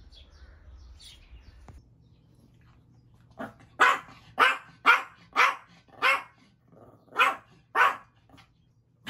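Small Yorkshire terrier barking during play, a run of about eight short, sharp barks starting about three seconds in, roughly two a second.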